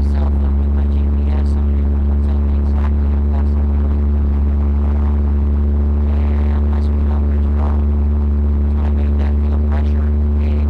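1977 Ford Ranchero's 351 Windsor V8 running at a steady speed, a constant low drone.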